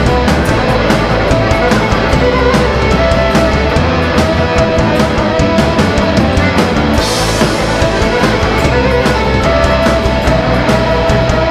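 Live band playing an instrumental passage without singing: electric and acoustic guitars and a fiddle over a drum kit's steady beat, with a cymbal crash about seven seconds in.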